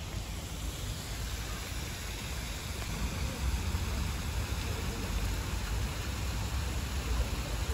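Steady rush of water splashing from a tiered fountain, with a low, uneven wind rumble on the microphone underneath.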